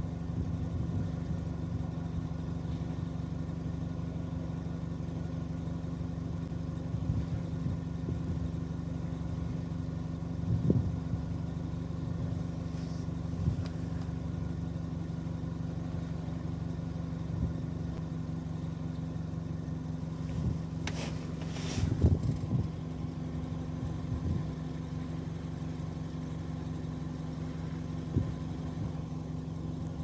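A steady low mechanical hum, like an engine running, holding two steady low tones throughout. A short knock comes about a third of the way in, and a brief hiss with a knock about two-thirds through.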